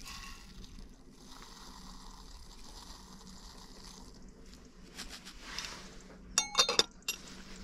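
Liquid running or being poured in a steady hiss that breaks off briefly about four seconds in, then a few sharp ringing clinks about six and a half seconds in.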